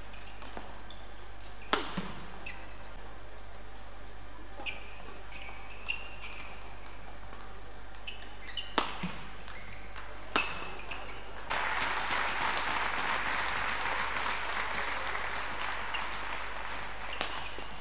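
Badminton rally in an arena: sharp cracks of rackets hitting the shuttlecock, with short high squeaks of court shoes between them. About eleven seconds in the rally ends and the crowd breaks into applause for several seconds, dying away near the end.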